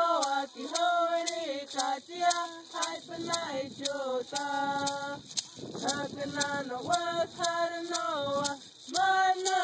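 Tohono O'odham traditional song: a voice singing in short phrases with brief pauses between them, over sharp ticks keeping a steady beat about twice a second.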